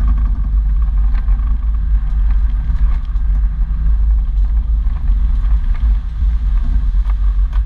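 A 4x4 driving along a rough, wet dirt track, heard from a camera on its bonnet: a steady low rumble of engine and wind on the microphone, with a few small knocks from the bumpy ground.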